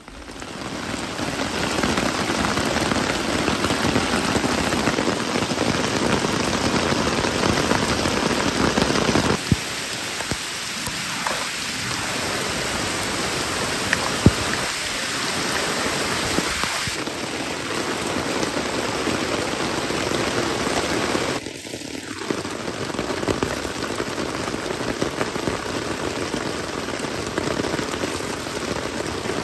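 Heavy rain falling on a nylon tarp and a wooden deck, with runoff pouring off the tarp's edge. The steady rush steps down a little about a third of the way in and again about three quarters through.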